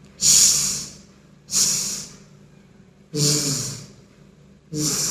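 A woman pronouncing the English palato-alveolar fricatives /ʃ/ ("sh") and /ʒ/ ("zh") in isolation as a phonetics demonstration: four hissing sounds about a second and a half apart, the last two with the voice sounding under the hiss.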